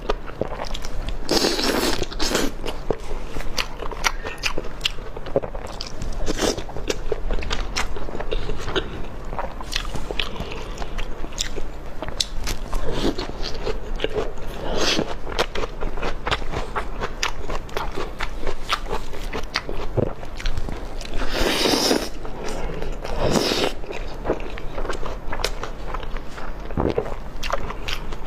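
Close-miked eating: crunchy bites and chewing, a dense run of sharp crunches, with a couple of longer noisy swishes near the start and about three quarters through.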